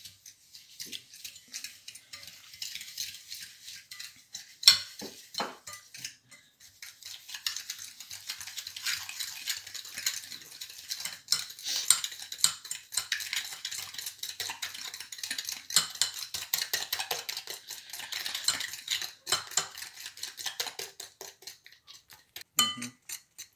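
A metal fork rapidly beating egg and sugar in a ceramic bowl, the tines clinking and scraping against the bowl in a fast, continuous patter. One louder clink comes about five seconds in.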